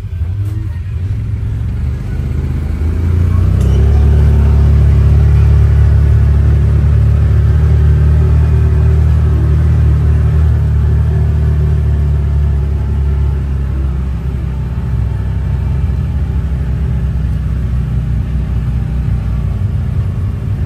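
Vehicle engine running under way with a heavy low rumble, getting louder about three seconds in and easing off a little later.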